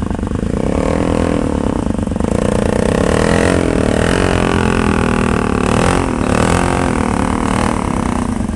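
ATV engine revving hard, its pitch rising and falling, as the quad churns through deep creek water and climbs out onto the shallows, with water splashing and churning at the wheels.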